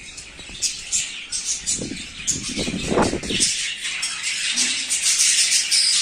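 A flock of budgerigars in an aviary, chirping and chattering continuously with many overlapping calls. There is a brief rustle about three seconds in.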